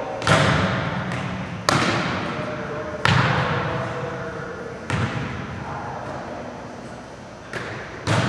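A volleyball struck again and again in forearm passes and sets, each contact a sharp smack with a long echo in the gymnasium, about six hits one to two seconds apart.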